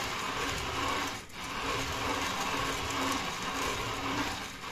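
Tescoma Handy hand-cranked poppy seed mill grinding poppy seeds between its ceramic burrs, the crank turned steadily, with a brief drop about a second in.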